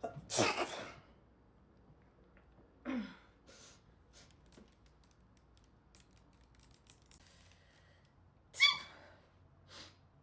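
A loud, full sneeze, then a second or two later a short vocal sound falling in pitch, and faint scattered clicks. Near the end comes a short, higher-pitched little sneeze.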